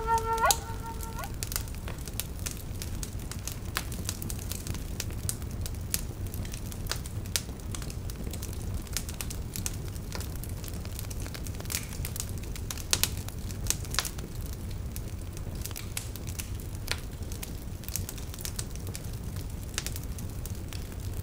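Wood fire crackling in a fireplace: irregular sharp pops and snaps over a steady low rumble of the flames. A flute note ends in the first second.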